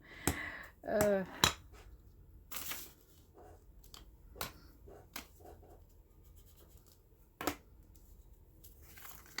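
Scattered light taps, knocks and a short rustle of clear rubber stamps being handled and pressed onto paper, with a sharp knock about one and a half seconds in and another near seven and a half seconds.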